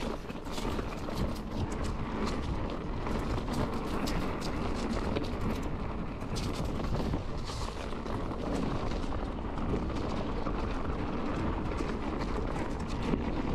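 Mountain bike rolling along a dirt trail strewn with dry leaves: steady tyre rumble with many small crackles and clicks.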